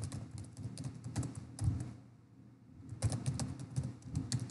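Typing on a computer keyboard: quick runs of key clicks, a pause of about a second around two seconds in, then the typing picks up again.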